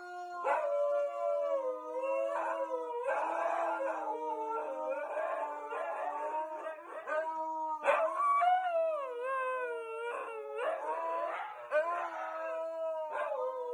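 Two huskies howling together, long overlapping howls that slide up and down in pitch.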